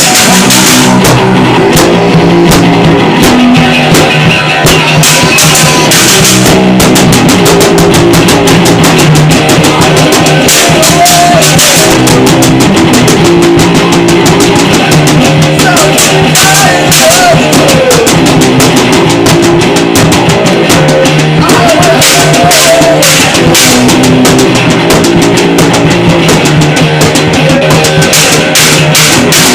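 Loud, distorted lo-fi garage punk band playing: fuzzy electric guitar and bass over a steady pounding drum kit, with a wavering voice faintly in the mix.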